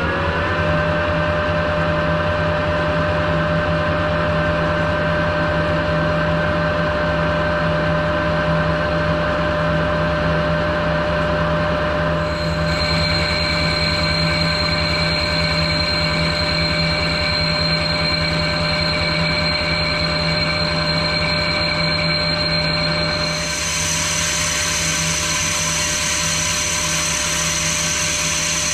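Metal lathe running at steady speed with a steady gear whine while a tailstock drill bores into a spinning cast-iron wheel. Higher whining tones join about twelve seconds in, and the high end changes again a few seconds before the end.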